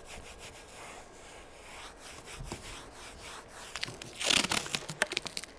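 A hand brush scrubbing a vinyl car roof, a quiet steady rubbing, with a brief louder burst of crackling and hiss about four seconds in.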